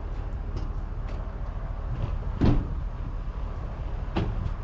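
A vehicle's engine running with a steady low rumble, with two sharp clunks, about two and a half and four seconds in, as the tow rope takes up tension on the dead truck.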